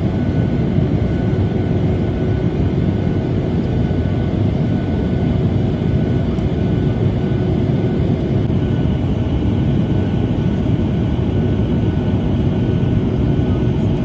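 Airliner cabin noise in flight: a steady low rumble of jet engines and rushing air, with a faint steady whine above it.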